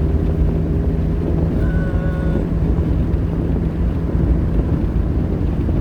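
Steady road and engine rumble inside a moving car, with wind noise.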